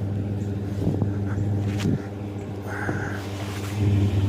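A vehicle engine running with a steady low hum that grows louder near the end. A short high call sounds about three seconds in.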